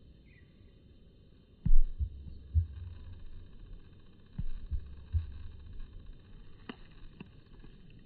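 Handling noise on the microphone: a series of low thumps over a low rumble, the first and loudest a little under two seconds in, then two sharper clicks near the end.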